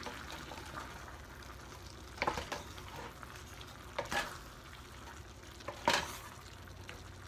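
Wooden spatula stirring diced Spam and mixed vegetables in a stainless steel pot over a faint sizzle, knocking against the pot in three short clusters, roughly every two seconds.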